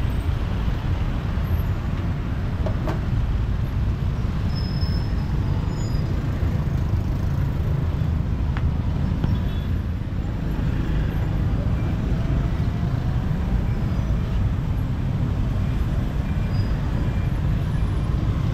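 Steady street traffic noise with a low rumble from passing motorbikes and cars. Two faint sharp clicks, about three seconds in and again about eight and a half seconds in.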